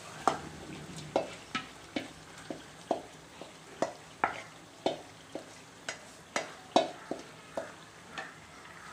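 A spoon repeatedly scraping and knocking against a steel bowl, about two sharp taps a second, as marinated chicken is scraped into a pot of hot oil and masala that sizzles underneath.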